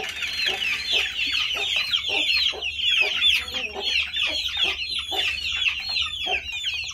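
A flock of young chicks peeping nonstop in rapid, overlapping high chirps, hungry and waiting for feed. A hen clucks lower underneath.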